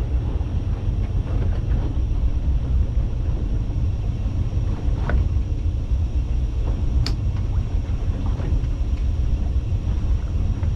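Steady low rumble of the fishing boat running, with no break or change in level. A short click about five seconds in and a sharp high tick about two seconds later.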